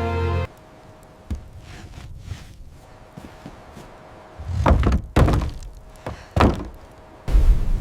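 Several heavy thuds, like blows against a wooden door: a small knock, then three loud ones about a second apart, followed by a loud low rumble near the end. Background music stops just after the start.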